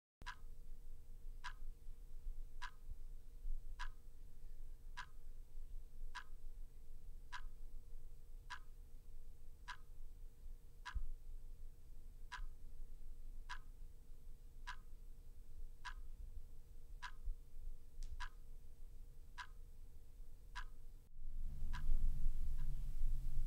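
Clock ticking slowly and evenly, a tick a little over once a second, over a faint steady hum. The ticking stops about 21 seconds in, giving way to louder low rumbling room noise.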